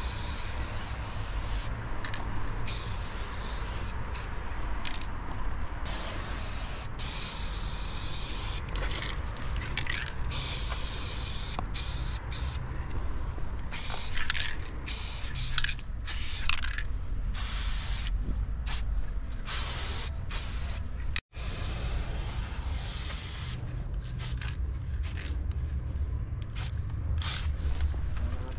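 Aerosol spray paint can spraying paint onto a wall in repeated bursts, some short and some a second or more long, each hiss starting and stopping sharply, over a steady low rumble.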